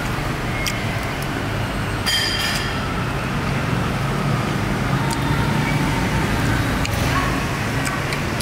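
Steady traffic rumble of a busy street, with a few light clinks of a metal fork against a ceramic plate, one of them ringing briefly about two seconds in.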